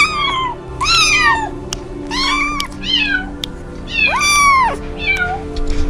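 Domestic cat meowing repeatedly, about seven short high calls that rise and fall in pitch, the longest about four seconds in. Soft background music plays under the calls.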